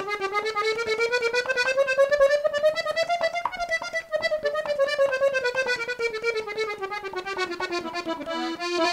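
Three-row Hohner button accordion playing a quick run of notes that climbs for about three seconds and then comes back down, ending on a held note near the end. The run is played to show that the instrument has all the tones.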